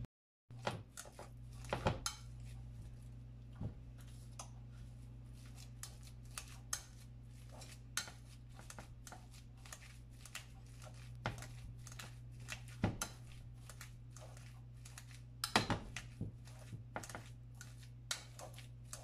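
Wire potato masher pressing boiled potatoes in a glass bowl: irregular soft squelches with sharper clicks and knocks as the metal masher hits the bowl, a busier cluster near the end. A steady low hum runs underneath.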